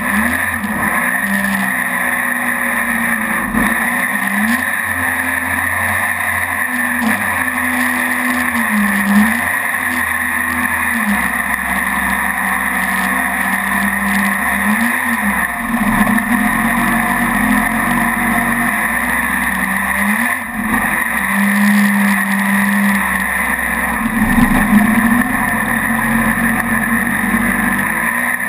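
Mini jet boat's engine running under way, its note repeatedly rising and falling as the revs change, with a steady rushing hiss beneath.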